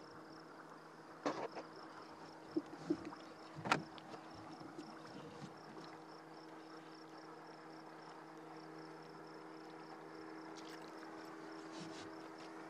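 Steady hum of a boat motor running, with a few sharp knocks in the first four seconds, the loudest about four seconds in.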